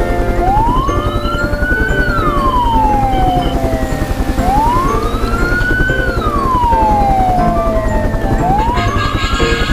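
A siren wailing: its pitch rises over about a second and a half, then falls slowly, repeating about every four seconds. Underneath runs a steady background with a fast low pulse.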